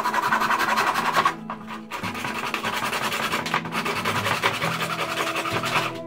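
Handheld saw blade cutting through PVC pipe in fast rasping strokes, in two spells with a short break about a second and a half in. Acoustic guitar music plays underneath.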